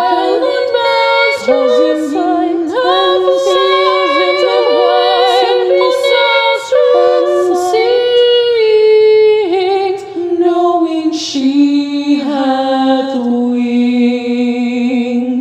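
Several layered female voices singing a cappella in harmony, wordless in the closing bars of the round. The lowest line slides down and the voices settle on a long held final chord, which starts to fade at the very end.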